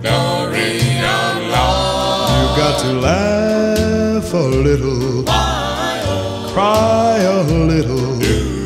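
Background music: a song with a melody line over a steady bass line.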